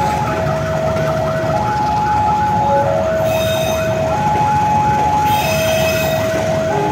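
Level-crossing warning alarm sounding its two-tone signal, switching between a lower and a higher tone about every 1.2 seconds, over the rumble of passenger coaches rolling past on the rails. There are two short hissy squeals from the wheels, about three and five seconds in.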